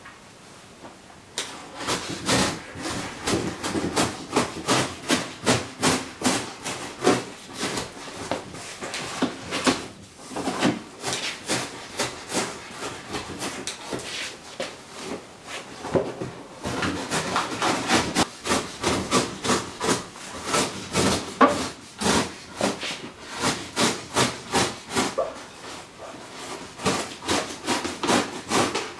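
Cardboard packaging being handled, rubbing and scraping in quick repeated strokes, with brief lulls about ten and sixteen seconds in.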